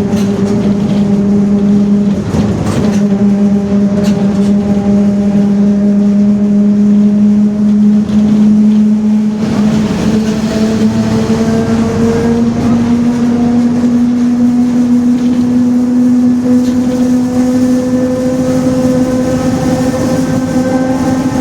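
Differential of a Mercedes-Benz OF-1721 bus droning very loudly: a strong steady whine that creeps slowly upward in pitch as the bus gains speed.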